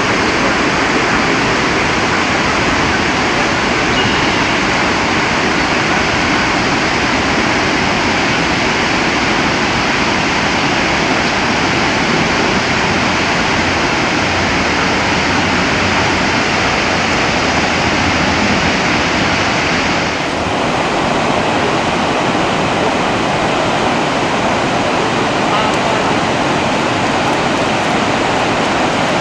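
River water rushing in a steady, loud, even hiss, slightly duller about two-thirds of the way through.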